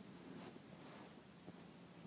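Near silence, with faint soft footsteps on grass, about one every second, and a faint rustle.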